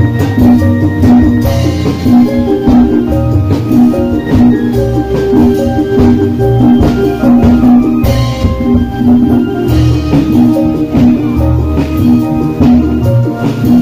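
Cirebon obrog street-band music: an electric keyboard playing a melody through a loudspeaker over a steady beat of blue plastic barrels struck with sticks as drums.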